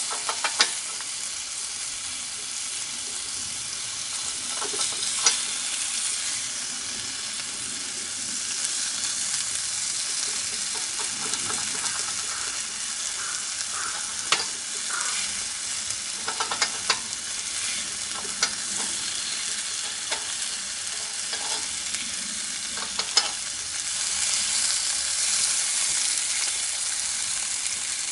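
Meat sizzling and frying on a hot grill plate: a steady high hiss, with a few sharp clicks scattered through it.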